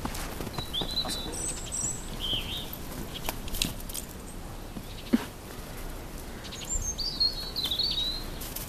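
Small birds chirping in short, high warbling phrases about a second in, again around two and a half seconds, and near the end. Under the chirps is the light crunching of paws and boots in snow, with one sharp thump about five seconds in.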